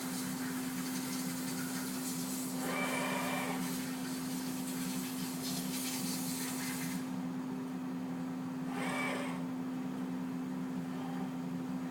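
CNC machine running with a steady hum, with two brief higher-pitched whirs about three and nine seconds in. A high hiss cuts off suddenly about seven seconds in.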